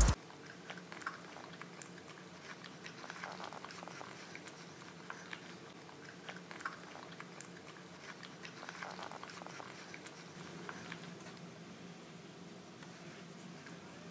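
Old English Bulldog puppies eating dry kibble, with faint scattered crunches and clicks of chewing and of food being nosed about.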